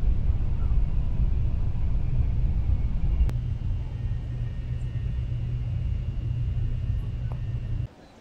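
Steady low rumble inside the passenger car of a Taiwan High Speed Rail train running at speed, with a faint high whine joining about three seconds in. It cuts off abruptly near the end, leaving a much quieter background.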